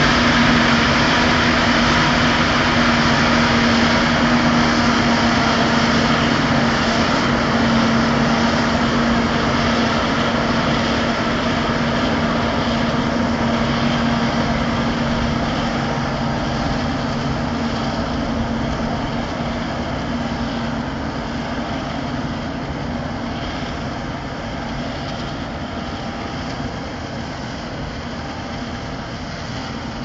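Claas Jaguar 870 self-propelled forage harvester running under load while chopping maize. A steady engine-and-machinery drone with a strong low hum fades gradually as the machine moves away.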